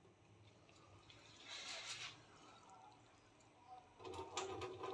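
Rinse water poured off washed rice from an aluminium pressure cooker, splashing briefly into a steel sink about a second and a half in. Faint knocks and clatter near the end.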